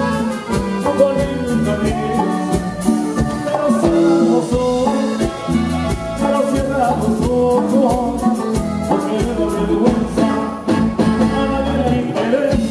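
Norteño group playing live, accordion melody over drums and bass with a steady dance beat.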